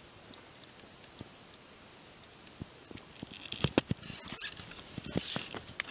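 Scattered light clicks and rustles from handling a fishing rod and spinning reel while a hooked carp is being played. The clicks become busier and crisper about three and a half seconds in.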